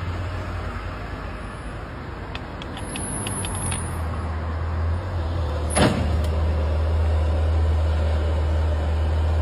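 A car manoeuvring out of a parking space hits a parked car, with a single sharp bump about six seconds in. Before the bump there is a brief run of quick ticks, all over a steady low hum.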